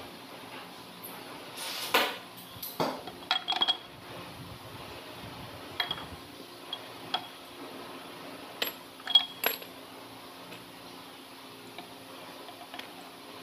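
Steel timing gears and tools clinking and knocking against a bare Perkins four-cylinder diesel block as the gears are handled and fitted onto the timing gear train. Sharp metal clinks come in scattered clusters, the loudest in the first four seconds and around the middle, a few ringing briefly.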